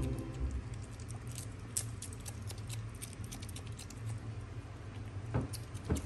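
Asian small-clawed otter chewing lettuce: quick, irregular crunching clicks, with a louder crunch near the end, over a low steady hum.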